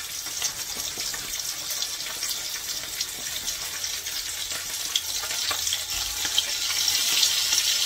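Bacaladillas (blue whiting) coated in chickpea flour frying in hot oil in a pan: a steady sizzle with small crackles, growing a little louder near the end.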